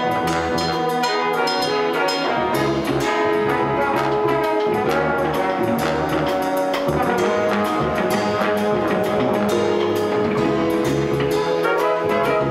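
Jazz big band playing full ensemble: saxophones, trumpets and trombones sound together over a rhythm section of piano, guitar, upright bass and drums, with cymbal strokes ticking steadily through the passage.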